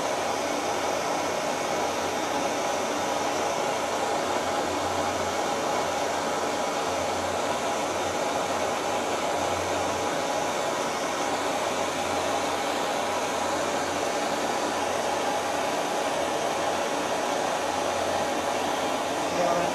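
Handheld gas torch flame running with a steady hiss as it heats a brass fitting on copper tubing for silver brazing.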